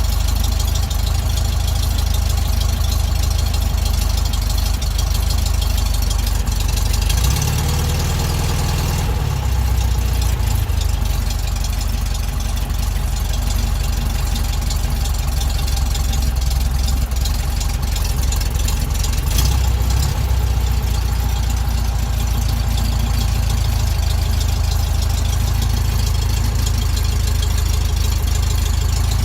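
1967 VW Beetle's 1200 air-cooled flat-four engine idling steadily as it warms up from a cold start, off the choke.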